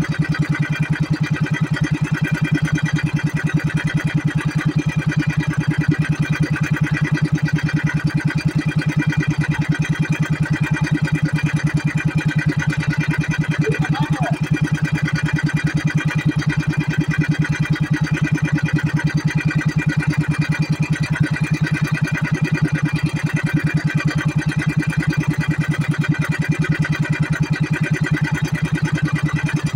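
Small inboard engine of an outrigger fishing boat running steadily at cruising speed, a fast, even firing beat heard from on board.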